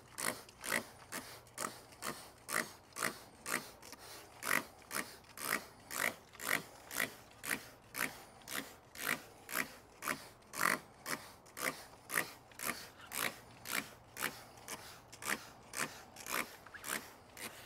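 Handheld trigger spray bottle squirted over and over, about two quick spritzes a second, each a short hiss of liquid spray.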